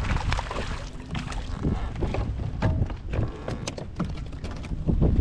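Wind buffeting the microphone in a low rumble, with water slapping and knocking against a kayak hull in irregular short knocks.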